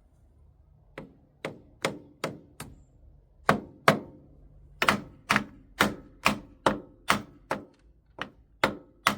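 Repeated sharp knocks, about two a second with a couple of short pauses, as the starter motor of a Grey Fergie (Ferguson TE20) tractor is tapped while the key is held at start. The starter does not turn: it is suspected stuck or faulty after long standing.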